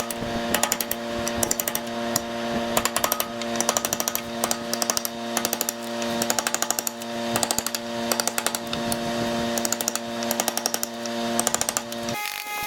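Handheld power tool running with a steady motor whine, broken by repeated bursts of rapid sharp knocking as it works the wood. The tool shuts off abruptly near the end.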